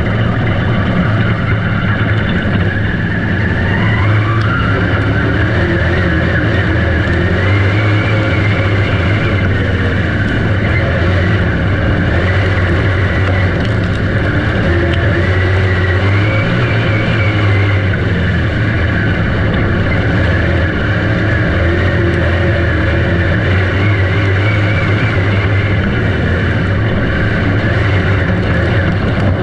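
Dirt track race car engine running hard, its revs climbing and dropping again and again as the car laps.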